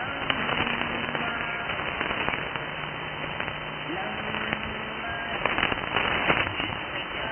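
Weak medium-wave AM broadcast on 917 kHz received through a software-defined radio: steady hiss with frequent crackling static crashes, and faint speech from the distant station buried in the noise. The sound is narrow and muffled, cut off above about 3 kHz by the receiver's filter, and the crackles bunch up about five and a half to six and a half seconds in.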